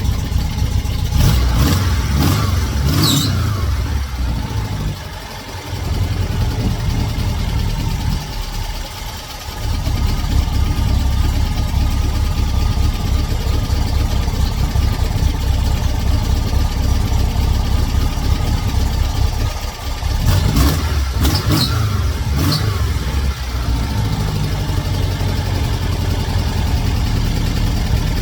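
A 2110cc air-cooled VW flat-four engine in a Super Beetle running steadily, its level dipping briefly twice in the first ten seconds. Short high squeaks come about two seconds in and again about twenty seconds in.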